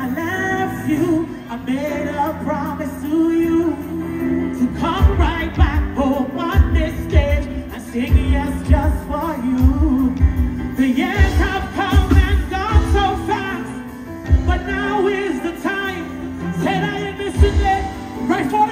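Music with a singing voice over a pulsing bass beat.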